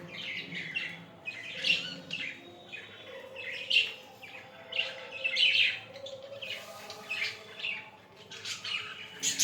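Budgerigars chattering, a continuous run of short high chirps and warbles coming in quick clusters.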